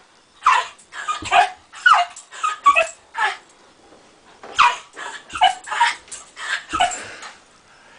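A dog giving short, high yipping barks in quick runs, each call dropping in pitch, with a lull of about a second midway.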